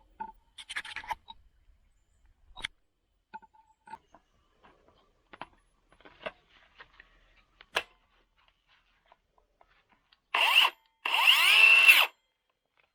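Worx WU533 cordless circular saw running in two short bursts near the end, the second about a second long, after several seconds of small knocks and clicks from handling the saw and plywood.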